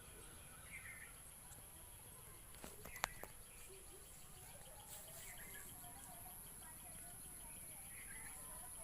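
Faint outdoor ambience with a few soft bird chirps every few seconds over a steady high hiss, and one sharp click about three seconds in.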